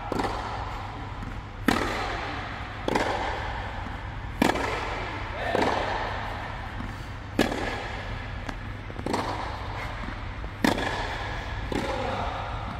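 Tennis rally: a ball struck by rackets with a sharp pop every second or two, about eight hits, each with a short echo from the dome, over a steady low hum.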